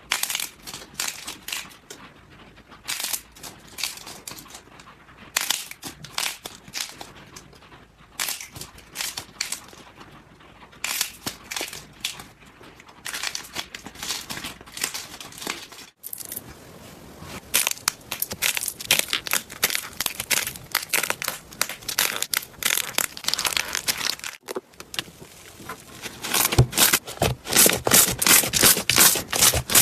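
Slime being squeezed and pressed by hands, making bursts of dense little pops and clicks. There are short breaks about halfway and about three quarters through, and the popping gets louder and denser near the end.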